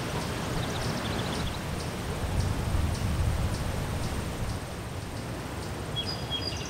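Outdoor background noise: a steady low rumble, with short quick series of high bird chirps about a second in and again near the end.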